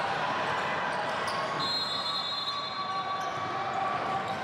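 Basketball bouncing on a hardwood gym court during play, heard amid the steady background noise of a large gym.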